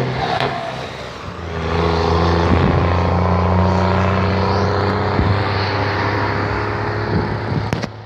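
Loud, steady, pitched drone from a truck. It dips about a second in, comes back half a second later and drops away near the end.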